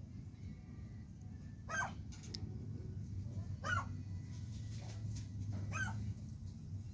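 Green peafowl calling: three short, loud calls about two seconds apart.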